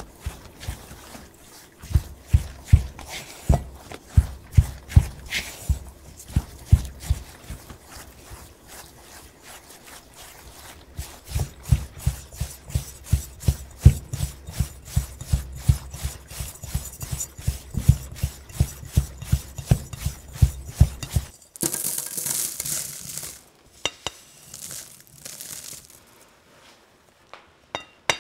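Silicone spatula mixing crumbly shortbread dough in a glass bowl: steady rhythmic thuds and light clicks as the spatula presses and cuts the butter, sugar and flour against the bowl, about two to three a second. Near the end the thudding stops and a short rustling scrape of the dry crumbs follows.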